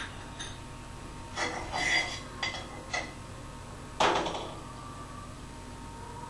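Kitchen utensils and dishes clinking and knocking against a metal kadai and the counter: a few small clinks, a short run of clatter about two seconds in, and a louder clank about four seconds in that rings briefly.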